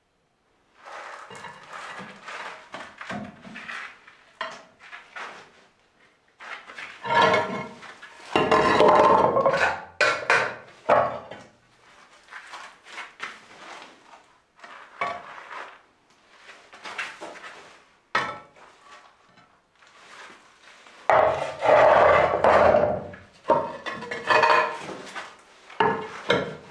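Flat stone floor slabs being shifted and fitted by hand: stone scraping across the floor and clunking against stone in irregular bursts. The loudest bursts come about eight seconds in and again around twenty-one seconds.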